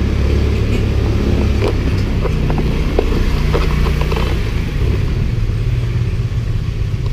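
Motor scooter engine running as the scooter rides slowly, a steady low note that shifts pitch a few times.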